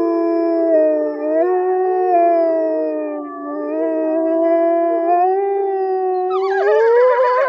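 Several wolves howling together in long, wavering, overlapping howls at different pitches. About six seconds in, higher howls rise in and the chorus grows busier.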